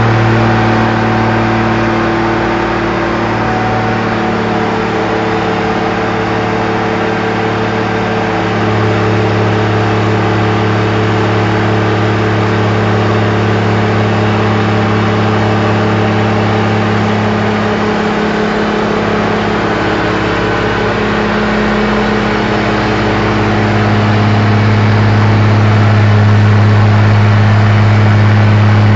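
Case IH 1255XL tractor's six-cylinder turbo diesel engine running steadily under load on a PTO dynamometer. The engine note shifts in pitch a few times and grows louder near the end.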